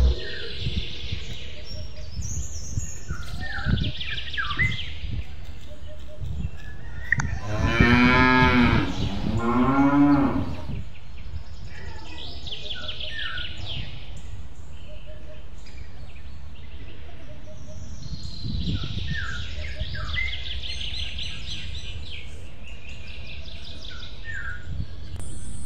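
A cow mooing, one long call about seven seconds in, over a farmyard background of small birds chirping on and off.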